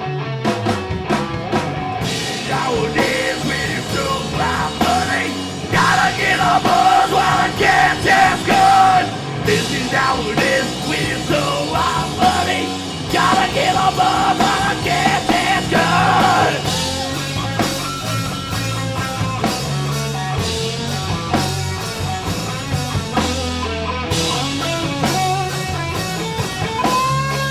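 A live rock band playing a loud, fast song on electric guitar, bass and drums.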